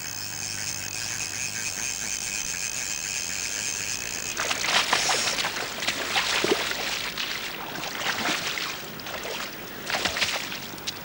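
A fishing reel's ratchet buzzing steadily as line runs. About four seconds in, a hooked salmon thrashes and splashes in the shallows as it is beached, with another short burst of splashing near the end.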